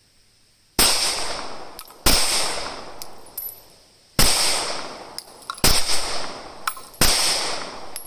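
Five shots from a Glock 19 Gen 5 9mm pistol, fired one at a time about one and a half to two seconds apart. Each shot is a sharp crack followed by an echo that dies away over about a second.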